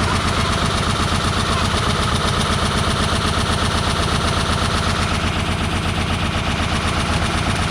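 Stripped-out washing machine running at full speed on its hardwired motor, with a brick and loose junk tumbling inside: a steady motor hum under a fast, continuous rattling clatter.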